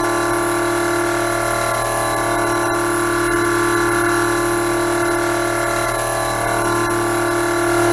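Machine tool running steadily: a level, unchanging whine made of several held tones, with no rhythm or strikes.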